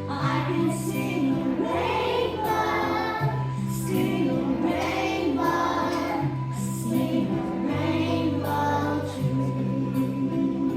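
A group of young children singing a song together over instrumental accompaniment with steady held bass notes.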